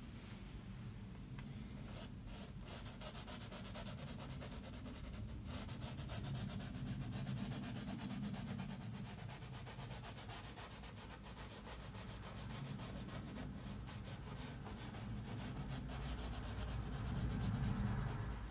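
Oil-paint brush scrubbing and rubbing across a stretched box canvas: a soft, steady scratching that swells and eases with the strokes and is loudest near the end.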